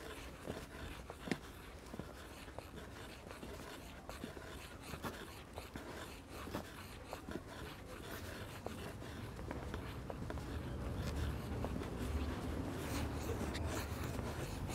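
Footsteps scuffing and crunching on a path, with scratchy rubbing and a low rumble that grows louder in the second half.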